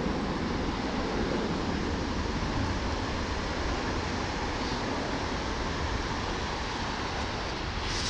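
Steady wash of breaking ocean surf, with wind rumbling on the microphone.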